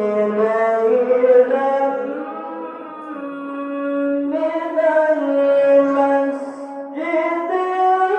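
A high-voiced male qari reciting verses of the Quran in the melodic tilawah style, holding long, wavering notes. His pitch steps higher about four seconds in and again near the end.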